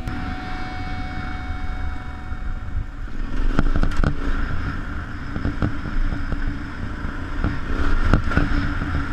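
2013 Yamaha Super Tenere's 1200 cc parallel-twin engine running as the bike rides a dirt trail, heard through a helmet-mounted camera. From about three and a half seconds in come knocks and rattles as the bike goes over ruts, with the engine getting louder for a moment then and again near the end.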